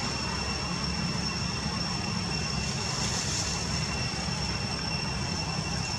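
Steady background ambience: a constant low rumble with a thin, unchanging high-pitched whine on top and no animal calls.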